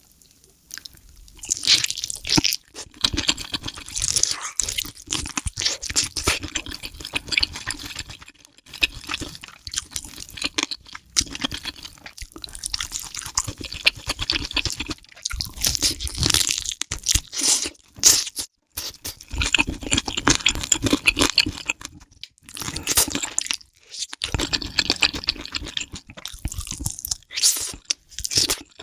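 Close-miked eating: crunchy chewing and biting in bursts of a few seconds, with short pauses between.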